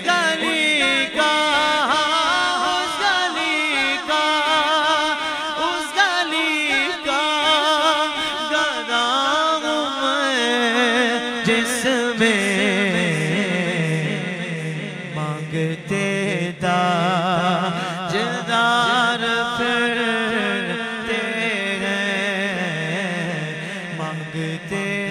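A male naat reciter singing a long, drawn-out, ornamented melodic line with heavy vibrato. From about halfway, a low sustained drone sits beneath the voice.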